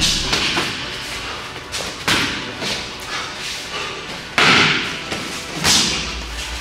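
Several thuds of strikes landing during MMA sparring, with the loudest and longest about four and a half seconds in.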